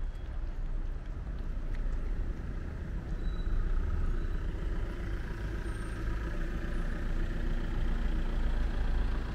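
A vehicle engine running, a steady low rumble with a faint hum, growing a little louder about three seconds in.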